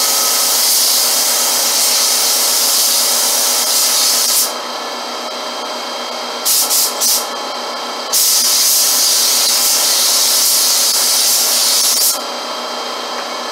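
Air spray gun spraying primer onto cabinet doors, a loud hiss of air and paint mist. The spray runs for about four and a half seconds, comes back as three quick short bursts around the middle, then runs steadily for about four seconds more and cuts off near the end. A steady machine hum sits underneath.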